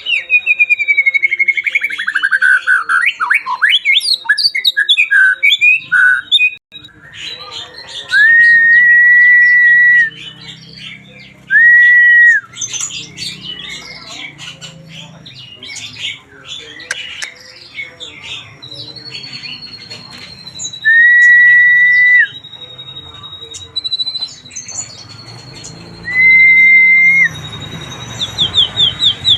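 White-rumped shama (murai batu) singing a varied song full of learned phrases: quick changing whistles and chatters at first, then four long, loud, level whistled notes with softer twittering in between.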